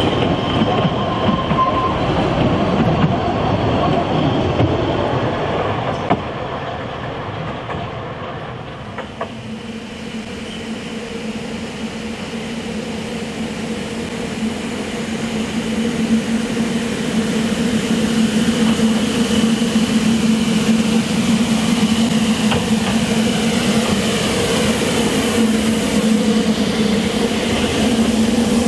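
Narrow-gauge steam train running by. A loud rumble of wheels and carriages eases off after about eight seconds, then a steady hum with a higher whine builds up and holds.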